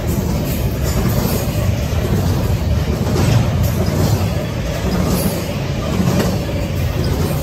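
Double-stack intermodal well cars of a Norfolk Southern freight train passing at speed: a steady, loud rumble of steel wheels on the rails.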